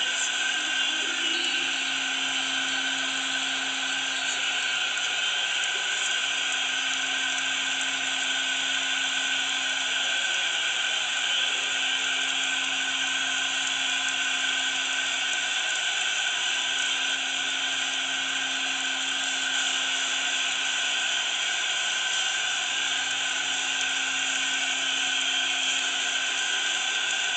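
Large home basketball crowd cheering without a break after a three-pointer, a steady wall of noise heard through a TV speaker.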